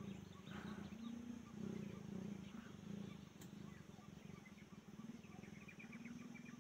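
Faint wild bird and animal calls: low pulsing calls that come back every second or so, and a quick run of high chirps near the end.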